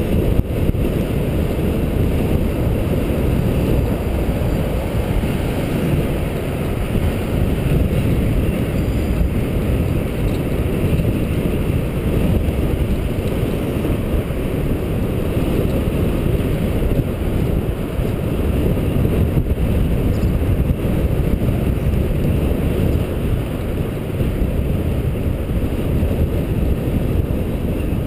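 Wind buffeting the microphone of a cyclist's helmet camera while riding: a steady, low rushing noise.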